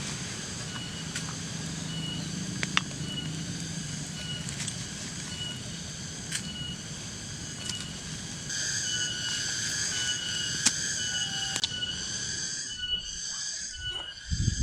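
Night insects chirping: a high, pulsing chirp about twice a second over a layered high chirring that grows louder about two thirds of the way in. Scattered sharp pops come through, with a low rumble in the first few seconds.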